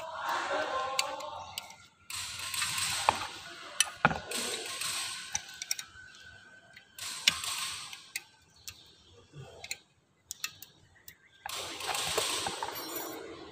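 Metal clicking and scraping of a small combination wrench working the through-bolts of a car alternator's case during reassembly. It comes in short irregular bursts with sharp clicks.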